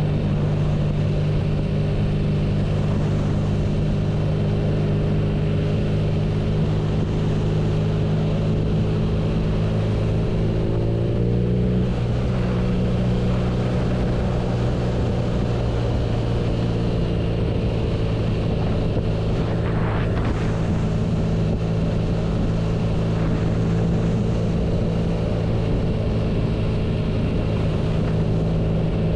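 BMW R nineT's air/oil-cooled boxer-twin engine running at a steady speed, with some wind noise. The engine pitch rises slightly about eleven seconds in, and there is a short sharp sound around twenty seconds in.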